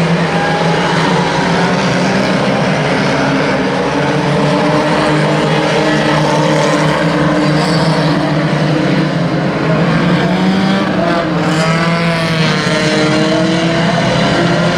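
Several banger racing cars' engines running hard and revving as a pack races together, their overlapping notes rising and falling, most changeably about three-quarters of the way through.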